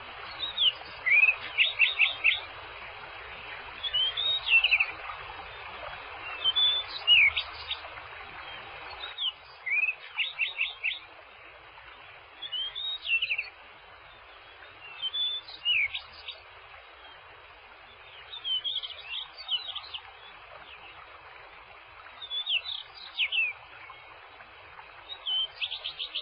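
A songbird singing short phrases of quick whistled notes, a new phrase every two to three seconds, over a steady background hiss that drops somewhat about nine seconds in.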